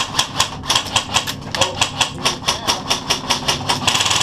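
Airsoft electric gun firing: a quick, steady string of sharp shot clicks at about eight a second, then a denser full-auto burst near the end.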